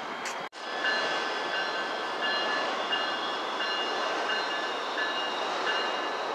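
Amtrak passenger train running past on an elevated track, a steady rumble of cars and wheels, with a high tone that comes and goes about every three-quarters of a second. The sound cuts out briefly about half a second in.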